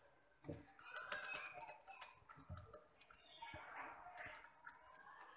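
Faint, scattered clicks and light knocks of parts being handled by hand around a motorcycle's freshly refitted spark plug.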